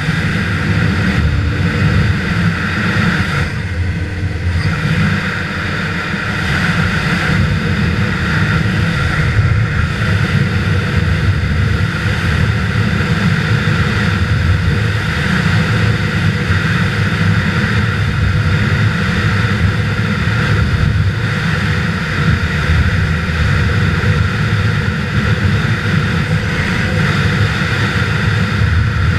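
Snowmobile engine running steadily at trail speed, heard from the rider's seat, with a brief dip about four seconds in.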